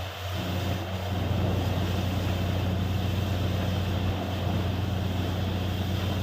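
Borewell drilling rig's engine running steadily: a continuous low hum with an even rush of noise above it.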